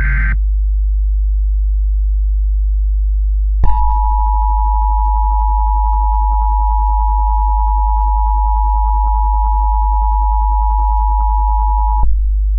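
Emergency Alert System sequence: the tail of a warbling SAME data burst, then, about three and a half seconds in, the EAS two-tone attention signal sounds steadily for about eight seconds and cuts off. A loud low hum runs underneath throughout.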